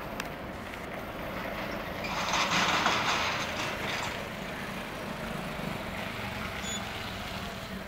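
A vehicle passing, its noise swelling and fading over about two seconds, over steady outdoor background noise.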